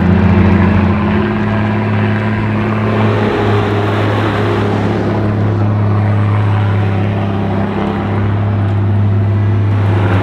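Engine of a tracked all-terrain carrier running steadily as it drives along a dirt trail, with a constant low drone and the rumble and rattle of the vehicle underneath.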